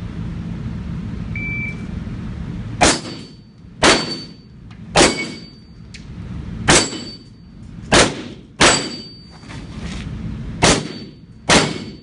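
Eight pistol shots at a six-plate steel plate rack, unevenly spaced under a second to two seconds apart, each echoing. Most shots are followed by the ringing clang of a struck steel plate, the sign of a hit.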